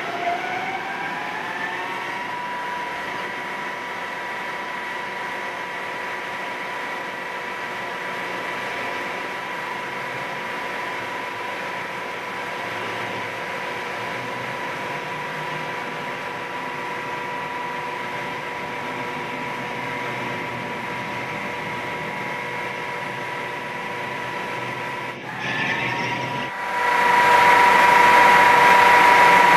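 Ingersoll CNC planer mill's spindle drive spinning up with a rising whine over the first couple of seconds, then running at a steady high whine. About 25 seconds in it dips and breaks briefly, then comes back louder and noisier near the end.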